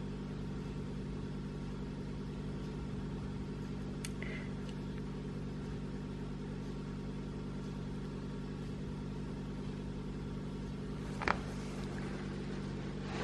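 Steady low hum of a motor or electrical appliance, with a light tap about four seconds in and a sharper click about eleven seconds in.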